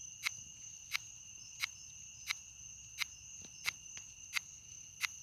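Longhorn beetle (cerambycid) larva chewing wood under the bark of a freshly felled pine: sharp, dry clicks about every 0.7 seconds. Behind it runs a steady, high-pitched chorus of night insects.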